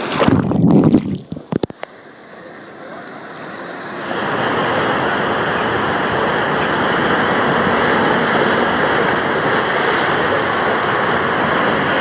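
A rider's splashdown into a waterslide's run-out pool, with water splashing loudly around the camera for about a second before it drops off. From about four seconds in, a steady rush of water pouring out of the open fibreglass body-slide flumes into the splash pool.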